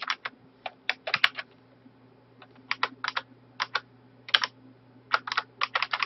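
Computer keyboard keystrokes in irregular clusters, with a pause of about a second near the middle, over a faint steady low hum.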